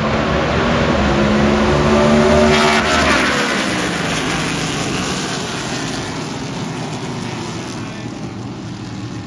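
A field of road-racing cars running at full throttle past the viewing spot just after the green-flag start. The engine note is loudest about two to three seconds in, as cars go by with a falling pitch, then fades steadily as the pack pulls away.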